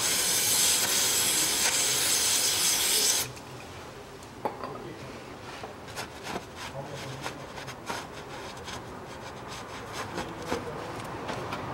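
Aerosol cleaner hissing from a spray can with an extension straw, washing old gear oil off a rear differential housing; the spray stops suddenly about three seconds in. After that, quieter irregular rubbing with a few small knocks as a gloved hand wipes the housing.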